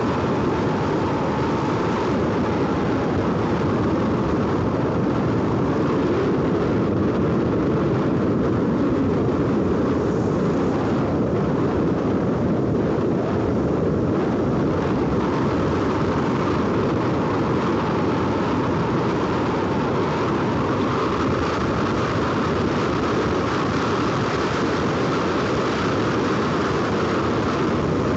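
Steady rushing noise of a motorbike ride at road speed: wind over the microphone mixed with the bike's engine and tyre noise, with a faint wavering hum.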